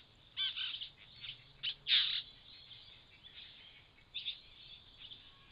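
Satin bowerbirds at the bower chattering: a run of short, separate calls, the loudest about two seconds in.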